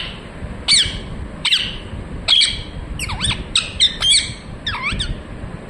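Indian ringneck parakeet giving a series of about ten short, sharp squawking calls that sweep up and down in pitch, bunched closer together in the middle and stopping about five seconds in.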